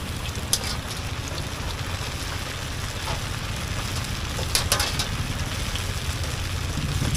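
An egg-coated pastry deep-frying in a large wok of hot oil: a steady sizzle with a low rumble underneath and a few sharp clicks, the loudest cluster a little before five seconds in.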